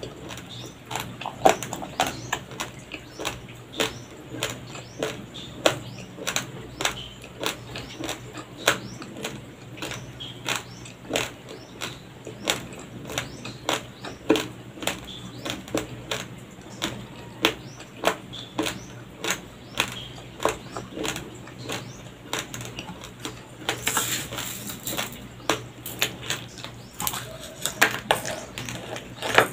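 Raw, uncooked white rice grains being chewed: a steady run of crisp crunches, about two a second. A brief rustle comes near the end.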